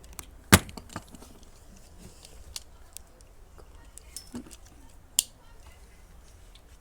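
Plastic Beyblade tops and launcher being handled: a sharp click about half a second in, another a little after five seconds, and light ticks and taps between.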